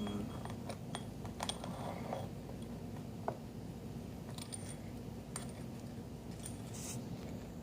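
Scattered light metallic clicks and clinks of small espresso-machine parts being handled during reassembly.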